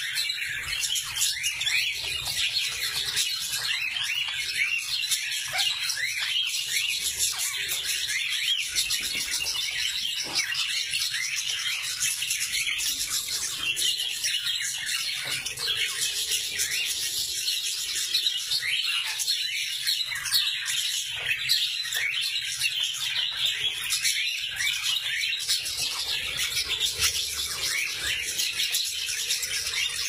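A flock of budgerigars and cockatiels chattering and chirping without a break, many short calls overlapping.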